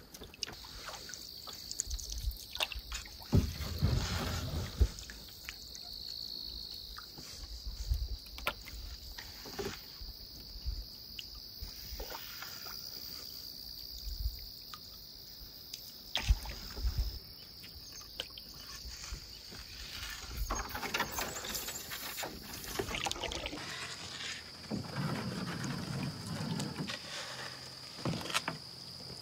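Canoe being paddled: irregular paddle strokes with water swishing and dripping, and occasional knocks of the paddle against the canoe's hull. A steady high-pitched hum runs underneath.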